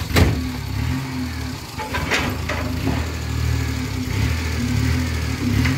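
An old van's engine running steadily, driving a homemade concrete mixer. Four sharp clanks come in the first three seconds.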